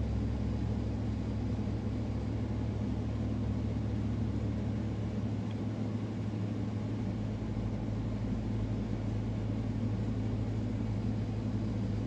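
Steady low mechanical hum, even in level, with no distinct bird calls or other events standing out.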